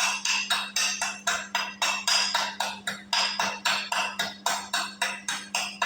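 Chipping hammer tapping slag off a freshly laid 6013 stick fillet weld: quick repeated metallic taps, about four to five a second.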